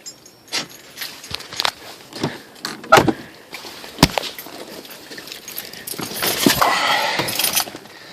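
A bunch of keys jangling and being handled, with scattered sharp clicks and knocks and a longer rattle about six seconds in.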